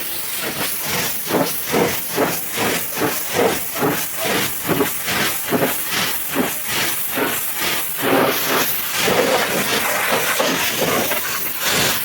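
High-pressure washer jet spraying water, a loud hiss that pulses about two to three times a second, with a steadier stretch about two-thirds of the way through.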